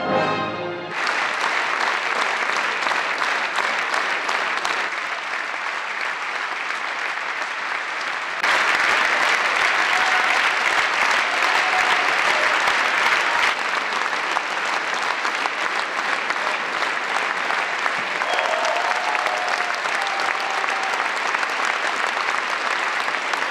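An orchestra's final chord ends about a second in, followed by a large theatre audience applauding steadily; the applause jumps louder about eight seconds in and eases back a few seconds later.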